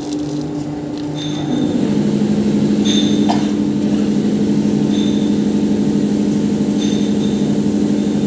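Steady electric-motor hum of workshop machinery running. About a second and a half in, a second, deeper motor hum joins and the sound gets louder. Faint short metallic ticks come about every two seconds.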